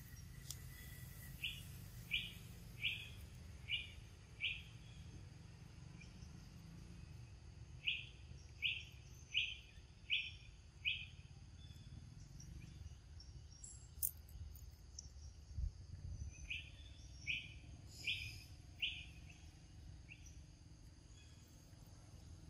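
A bird calling in three runs of about five short, sharp notes each, a little over one note a second, over a faint steady high insect hum.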